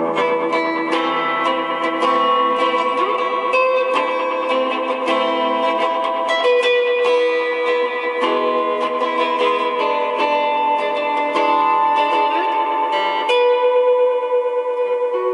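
Guitar played through an Ibanez Digital Delay Soundtank pedal: a melody of plucked notes whose delayed repeats overlap one another, so the notes ring on into each other.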